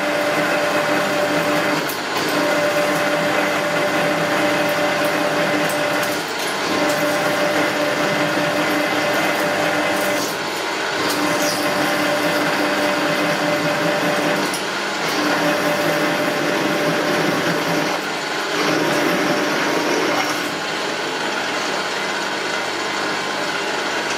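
Milling machine drilling a 21/32-inch hole through a mild steel plate: a steady running hum with a held tone that dips briefly about every four seconds and fades out near the end.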